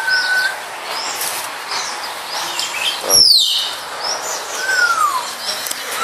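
Several birds chirping and calling over one another, with a few clear whistles gliding downward and one loud, sharp downward-sweeping call about three seconds in.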